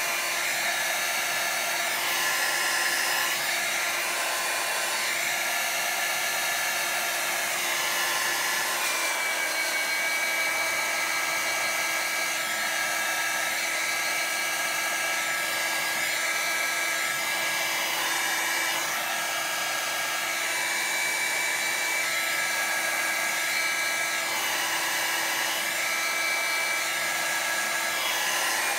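Revlon hair dryer running steadily: a constant rush of air with a thin, high motor whine.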